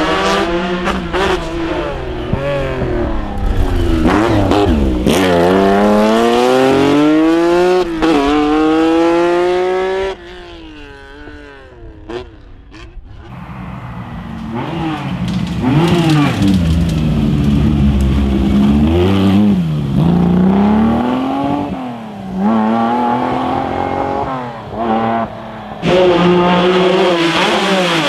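Lancia Stratos HF Group 4 rally car's Ferrari Dino V6 engine at full throttle, its pitch climbing in repeated rising sweeps and dropping back at each upshift. About ten seconds in it falls back to a fainter, more distant engine for a few seconds before loud runs resume, with several abrupt cuts from one pass to the next.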